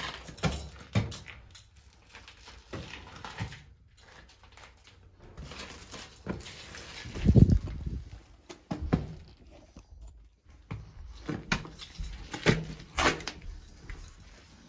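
Scuffing, shuffling and scattered knocks of a person crawling and squeezing through a tight crawl space, with one heavy thump about seven seconds in.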